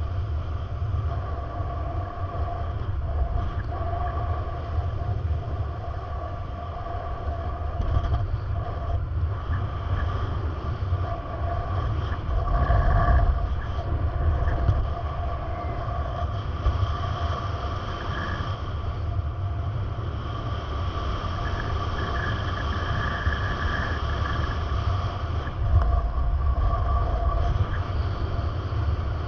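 Steady low rumble of a moving vehicle, with faint whining tones held above it.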